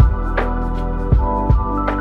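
Background music: held chords and stepping notes over occasional drum hits.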